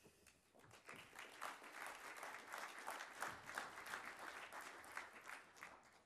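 Audience applauding, a dense patter of many hands clapping that builds over the first second, holds, and dies away near the end.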